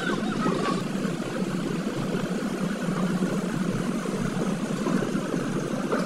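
Engine running steadily while a towed bitumen sprayer lays liquid asphalt on a gravel base through a hand-held hose.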